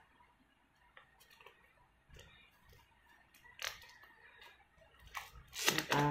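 Hands handling a small sealed cardboard product box and picking at it: faint scrapes and clicks, with a sharp tap about three and a half seconds in and a few more taps after. Near the end comes a short hum of a voice.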